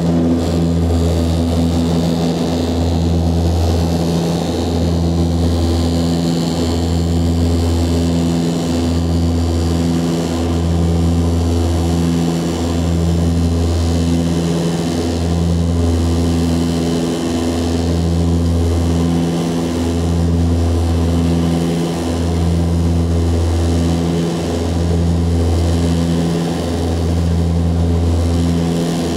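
The Antonov An-24RV's two Ivchenko AI-24 turboprop engines and propellers, heard from inside the cabin as a deep, steady drone. The drone throbs, swelling and dipping about once every two seconds.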